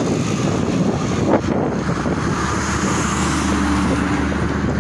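Cars passing close by on a highway over a steady rush of wind and road noise. A passing vehicle's engine hum comes in about two and a half seconds in and fades near the end.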